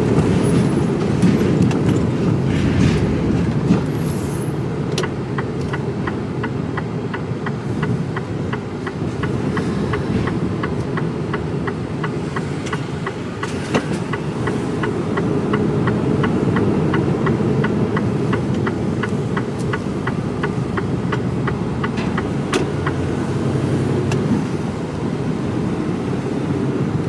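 Mercedes Actros lorry's diesel engine and road noise heard from inside the cab while driving, a steady low rumble. Through most of it there is a light, even ticking at about three ticks a second.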